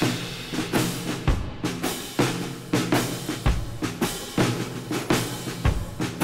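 Music with a steady drum-kit beat, about two hits a second.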